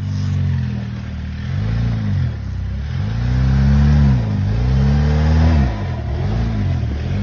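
Jeep Wrangler Rubicon engine revved repeatedly, its pitch climbing and dropping with each rev, several times in a row.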